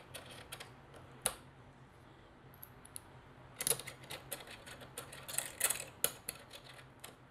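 Faint small metal clicks and ticks of screws and a small hex key being handled and fitted into the side plate of a camera cage. There is one sharper click about a second in, and clusters of quick clicks around four seconds and again between five and six seconds.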